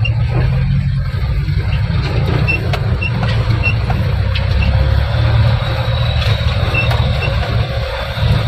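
Heavy diesel engine of an excavator or dump truck running steadily, with a deep rumble and a few short high chirps over it.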